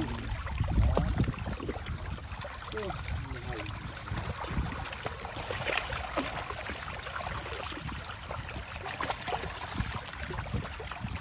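Water splashing and sloshing, with faint voices now and then.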